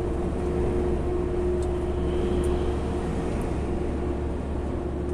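Heavy truck cruising at highway speed, heard from inside the cab: a steady engine and road drone with a low rumble and a constant hum.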